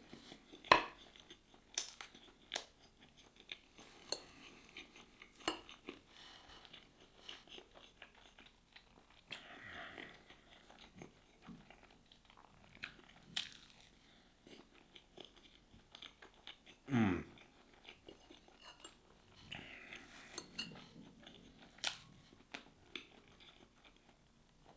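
A person chewing and crunching food close to the microphone, with scattered sharp clicks, and a brief falling hum about 17 seconds in.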